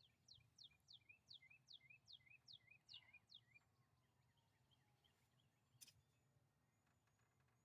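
Faint bird song: a quick run of about nine descending notes, roughly three a second, that stops after about three and a half seconds. A single sharp click about six seconds in.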